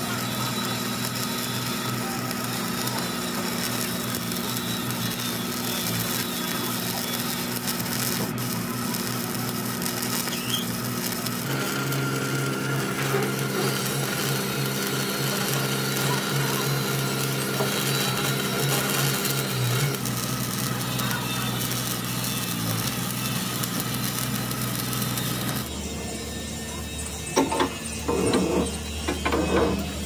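Stick welding on the steel drum of a road roller: a steady crackling arc over the hum of the welding set, whose pitch shifts about twelve seconds in. Near the end the crackle stops, leaving a lower hum and a few short knocks.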